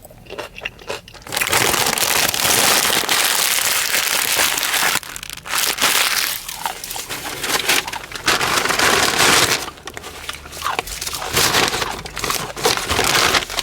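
Food wrapping being crumpled and crushed by hand, a loud crinkling rustle in long stretches with short breaks.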